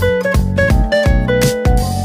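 Background music: a plucked, guitar-like melody over a steady beat.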